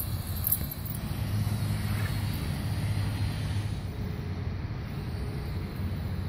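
Small quadcopter drone flying, a steady low hum, with wind rumbling on the microphone.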